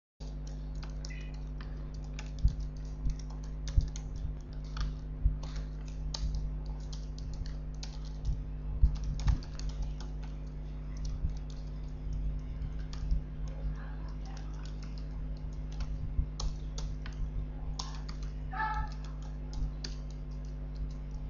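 Typing on a computer keyboard: irregular key clicks over a steady low electrical hum.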